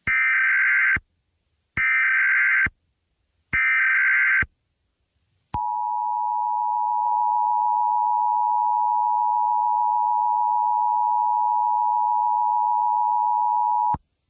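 Emergency Alert System signal: three roughly one-second bursts of warbling SAME digital header data, then, after a short pause, the steady two-tone EAS attention signal held for about eight seconds. Together they encode and announce a new alert ahead of its voice message.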